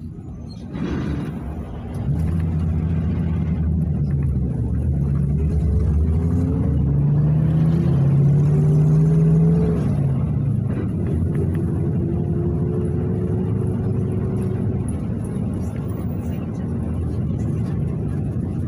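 PAZ 32054 bus engine heard from inside the cabin as the bus pulls away and accelerates: the engine note climbs, drops about ten seconds in as it shifts gear, then rises again.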